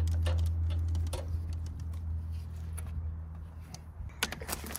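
Gloved hands rummaging among the wiring and fuses under the open dash of a Kubota BX23S compact tractor, hunting for a fuse: scattered light clicks and rattles, with a quick run of them near the end. A low steady hum fades away over the first couple of seconds.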